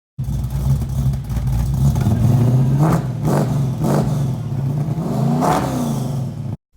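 Car engine running with a steady low drone, revving up twice, about three seconds in and again near the end, then cutting off abruptly.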